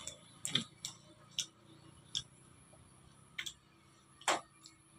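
A few short, light clicks and crinkles, about six over five seconds with a louder one just past four seconds, from small food packets and snacks being handled and eaten.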